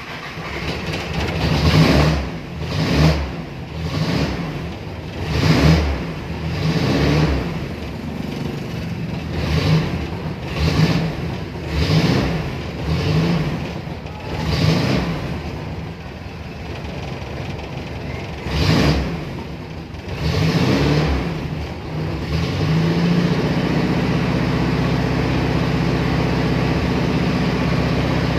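Toyota Tamaraw FX gasoline engine firing and being revved in repeated surges about a second apart, then settling into a steady idle about 22 seconds in. It runs again after the broken supply wire to its ignition coil was replaced.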